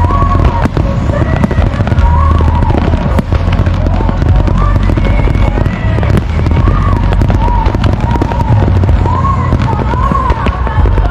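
Aerial fireworks display going off in a continuous barrage: dense, rapid bangs and crackling over a heavy low rumble.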